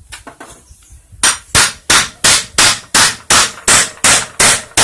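Hammer blows in a steady rhythm, about three a second, after a few light taps in the first second: a new bushing being driven into a washing machine agitator.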